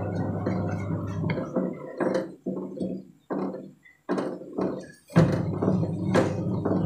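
A spoon and spatula scraping and knocking against a wok while stirring chicken livers in chili sauce, over a steady low hum. In the middle the sound breaks into short, choppy pieces with gaps between them, then the knocks and hum come back.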